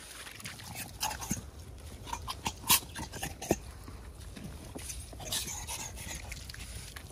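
Dogs making short, small vocal sounds, with several sharp clicks, the loudest a little under three seconds in.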